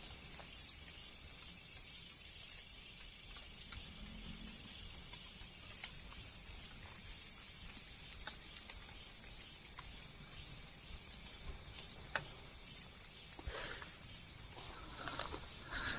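Faint night chorus of insects, a steady high-pitched trill, with scattered small ticks and rustles.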